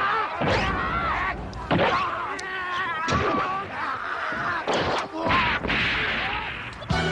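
Battle sound from a film melee: several voices yelling and shrieking over sharp clashes, thuds and bangs as naginata-armed women fight soldiers. Music comes in just before the end.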